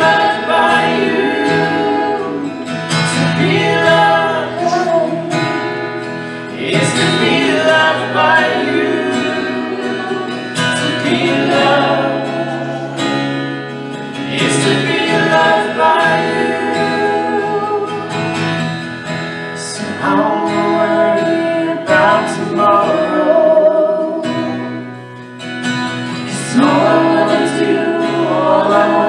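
A live worship song, sung to instrumental accompaniment.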